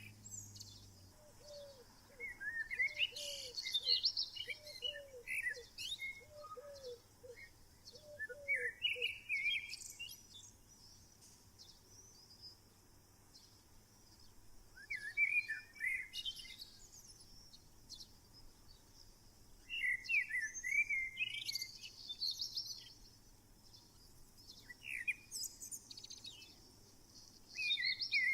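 Wild birds singing: short chirping song phrases every few seconds, with a run of about five low hooting notes from another bird in the first third.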